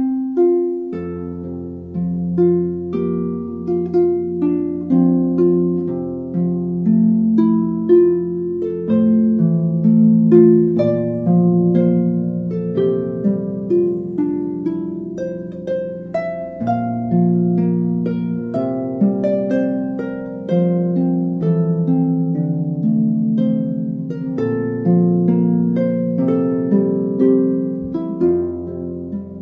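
Background music: a slow melody of plucked notes over long held bass notes.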